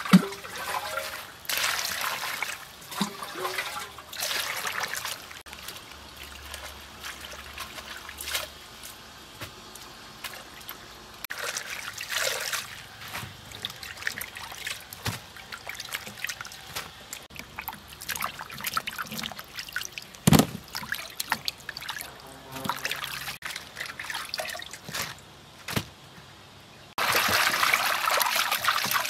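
Hands washing leafy greens in a stainless-steel bowl of water: irregular splashing and trickling as leaves are moved and lifted out, with a louder stretch of steady swishing near the end. A sharp knock near the start and another about two-thirds through.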